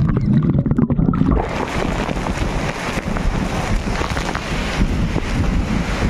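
Waterfall pouring into a plunge pool, a loud steady noise of falling water with spray buffeting the microphone. For about the first second and a half the sound is muffled to a low rumble, then it opens out again.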